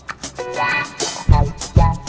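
Background music with a steady drum beat and bass, with a short melodic phrase about half a second in.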